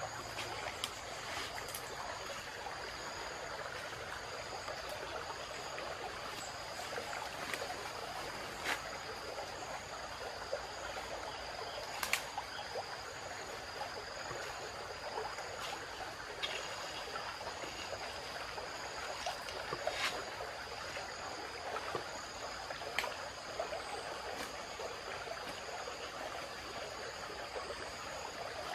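Steady rush of a flowing stream, with insects calling in two steady high tones. A few sharp clicks stand out, the loudest about twelve and twenty seconds in.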